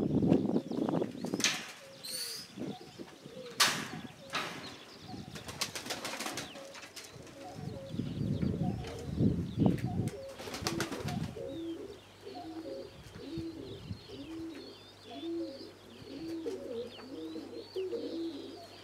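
Domestic pigeons cooing: a low coo repeated roughly once a second through the second half. The first half holds a few sharp crackles and bursts of rumble, and faint high chirps run along the later part.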